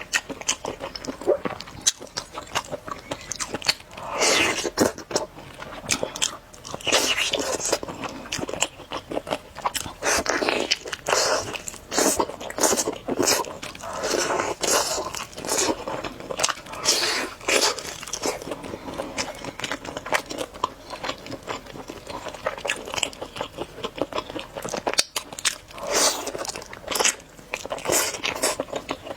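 A person biting into and chewing an Orleans-style roast chicken drumstick, bite after bite about a second apart.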